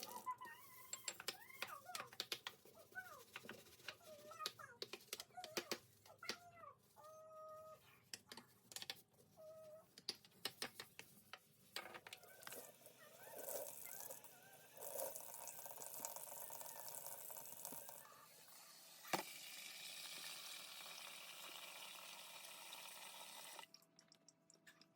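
Kitchen cleaning sounds: scattered clicks and short squeaks, then a tap running water into a sink. The water runs stronger after a sharp click about two-thirds of the way through and is shut off abruptly shortly before the end.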